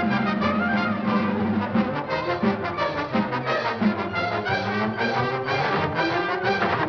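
Orchestral cartoon chase music with brass, playing busy, quick phrases.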